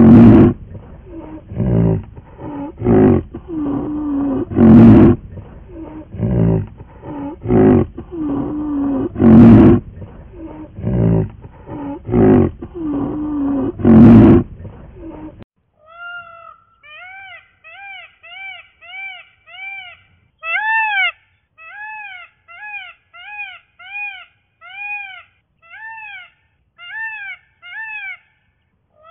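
A large animal's deep, loud roaring calls, about one a second, with the loudest near the start and every four to five seconds after, stopping suddenly about halfway through. Then a fast run of short high calls, each rising and falling in pitch, several a second, in bursts until the end.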